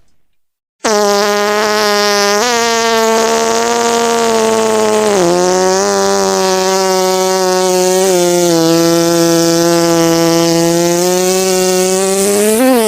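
A fart sound effect: one very long, steady-pitched blat lasting about twelve seconds, starting after a second of silence. It steps up slightly in pitch after a couple of seconds and drops back down about five seconds in.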